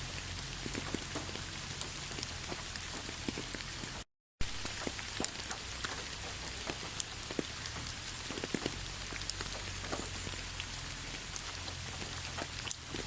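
Steady rain falling, with many individual drops ticking on a hard surface. The sound cuts out completely for a fraction of a second about four seconds in, then resumes.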